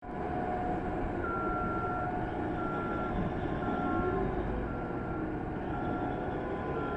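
Reversing alarm on heavy mining equipment beeping about once a second over the steady, deep rumble of working machinery.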